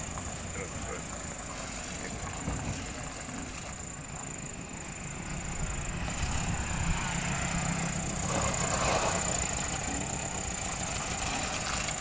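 1976 Toyota Corona driving on the road during its test drive: a steady engine and road rumble that swells a little about six seconds in, with a short rush of noise near the end.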